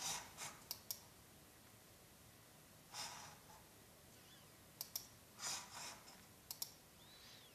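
Faint computer mouse clicks, a few of them in quick pairs, with two soft breaths between them over quiet room tone.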